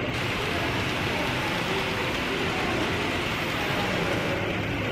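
Steady rolling hum of model trains running on a large layout, mixed with the even background noise of the exhibition hall.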